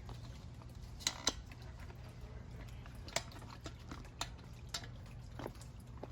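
Handling a bike wheel, tire and tube: a scattering of short, sharp clicks and light taps, two close together about a second in and others spread through the rest, over a faint steady hum.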